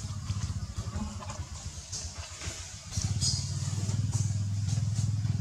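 A small engine running steadily nearby with a low, even hum. It is weaker and uneven for the first three seconds, then steady and louder.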